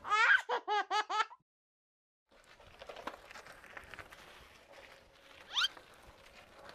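A quick, high-pitched squeaky giggle, five or six short notes, then a second of silence. After that, faint outdoor noise with light clicks and rattles from a bicycle being ridden, and one short, sharp rising squeak near the end.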